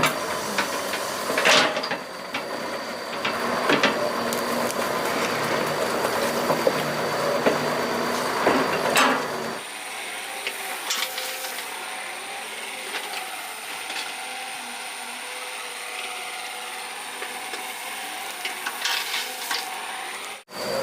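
Doosan 140 excavator working: the engine runs steadily with sharp metallic clanks of the bucket and arm, three louder knocks in the first half. About halfway through, the sound turns thinner and quieter.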